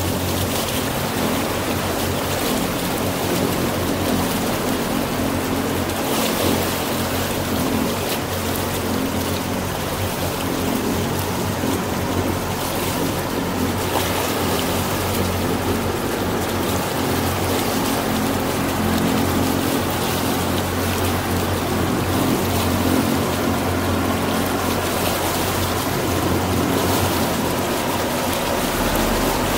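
Small motorboat under way: its engine running with a steady low drone, mixed with the rush and splash of water along the hull.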